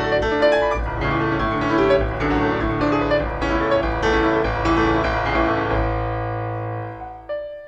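Background music led by piano, with chords over a held bass, fading out about seven seconds in before a quieter piano phrase begins.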